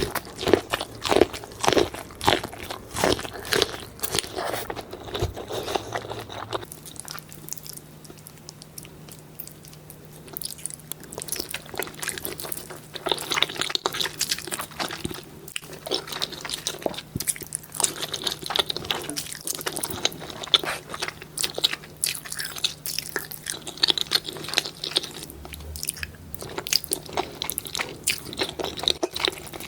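Close-miked eating sounds: crunchy bites and wet chewing come in quick, irregular bursts, with a quieter lull partway through. A faint steady hum runs underneath from about a quarter of the way in.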